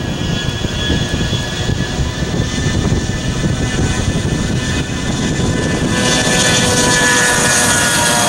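Twin rear-mounted turbofan engines of a Bombardier CRJ regional jet whining steadily at taxi power as it taxis past. The sound grows louder and brighter about six seconds in, and the whine tones slide slightly lower near the end.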